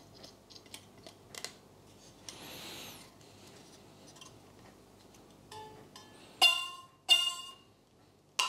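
Taut stainless steel wire on a wooden beehive brood frame plucked to check its tension: light clicks of needle-nose pliers at first, then, in the second half, a faint pluck and three loud plucks, each a short ringing note that dies away. The pitch of the note tells how tight the wire has been twisted.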